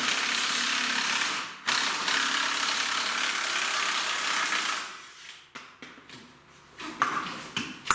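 Impact wrench running in two long bursts on the lower shock-absorber bolts, followed by a few light clicks and knocks.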